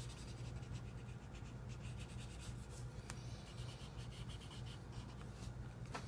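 Felt-tip marker scrubbing across sketch-pad paper in quick, repeated strokes as a patch of green is coloured in.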